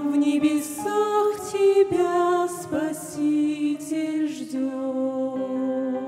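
Two women singing a Russian-language Christian song as a duet in harmony, over a soft instrumental accompaniment. From about four and a half seconds in they hold long sustained notes.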